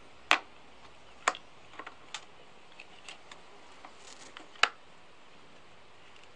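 Sharp clicks and light taps of small parts being handled and fitted on an outboard engine during reassembly: four distinct clicks with fainter ticks between them.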